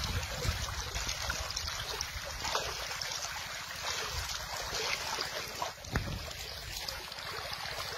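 Flowing river water with wind buffeting the microphone, and a few sharp splashes or knocks, the strongest about six seconds in.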